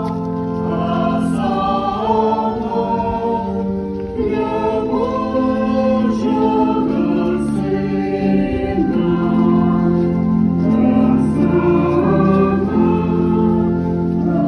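Choir singing, the voices holding long sustained notes that move together from chord to chord.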